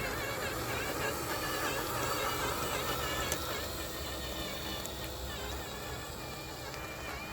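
RC truck's electric motor and drivetrain whining, the pitch rising and falling with the throttle as it drives.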